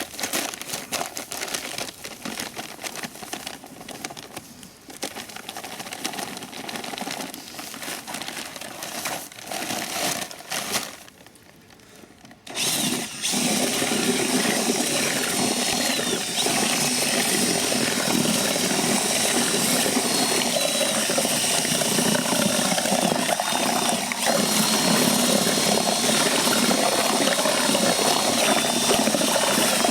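Irregular rustling and knocks as more concrete-filler powder is tipped into the bucket, going quiet about eleven seconds in. At about twelve seconds an electric drill fitted with a mixing paddle starts up and runs steadily with a faint wavering whine, stirring the concrete filler in the bucket.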